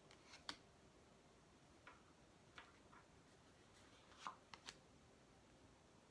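Faint, scattered light taps and flicks of tarot cards being handled and shuffled, about eight small clicks, the loudest a little past four seconds in.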